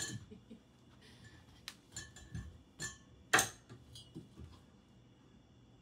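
Scattered knocks, taps and rubbing as hands and a leg grip a steel dance pole, with one sharp knock about three and a half seconds in.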